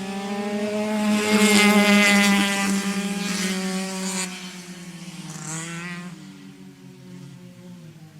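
Racing kart engine passing by at speed: its buzzing note swells to a peak about two seconds in, drops off after about four seconds, and fades as the kart moves away.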